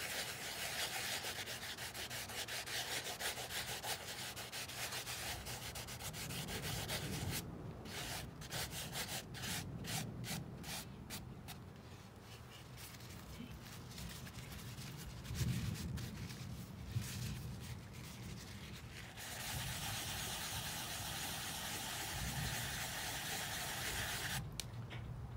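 Wadded paper towel rubbing over the oil-painted surface of a small stretched canvas in repeated strokes, wiping off excess paint. The rubbing is steady and scratchy, and thinner through the middle stretch.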